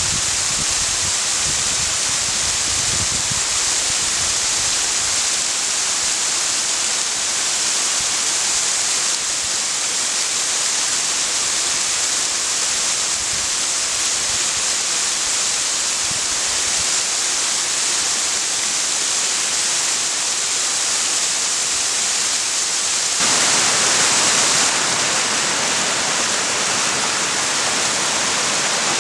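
Partly frozen waterfall pouring over icy ledges: a steady rush and hiss of falling water. Near the end it turns abruptly louder and fuller.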